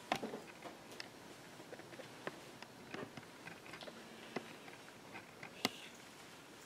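Faint scattered clicks and light taps of objects handled on an altar table as the missal's pages are turned and a bowl is lifted, with one sharper knock near the end.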